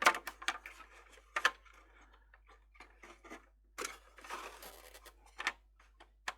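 Irregular small clicks, knocks and brief scraping as a circuit board and plastic parts are handled and set in place in an electronic keyboard's plastic case.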